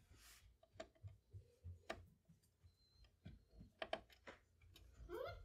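Faint, scattered clicks and small taps of a tiny M.2 mounting screw and screwdriver being worked into a PC motherboard.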